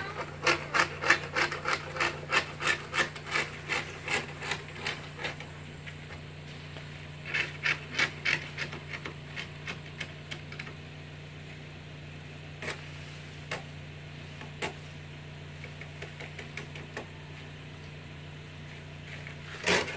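Rhythmic scraping strokes, about two to three a second, of snow and ice being scraped off a car, stopping about five seconds in; a second short run of strokes comes a couple of seconds later, then only a few scattered faint clicks.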